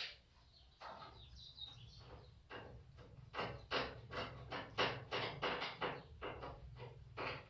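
Hand work on washing-machine parts during reassembly: a quick series of short scraping clicks, about three a second, over a low steady hum.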